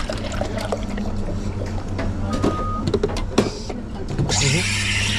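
Clattering and knocks over a steady low hum, a short beep, then about four seconds in an espresso machine's steam wand starts hissing loudly.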